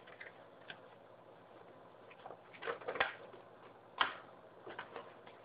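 Faint handling of paper leaflets and cardboard packaging: scattered soft rustles and a few light clicks, the sharpest about four seconds in.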